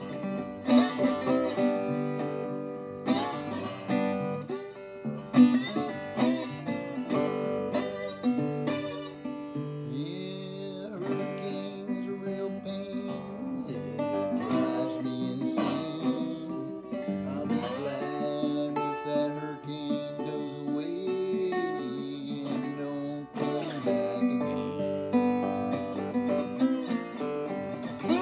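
Resonator guitar being played solo, picked notes and chords running through a tune.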